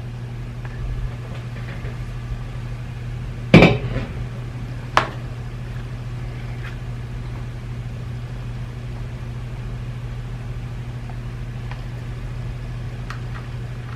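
Two sharp knocks of hard objects set down or bumped on a work surface, the first the louder, over a steady low hum.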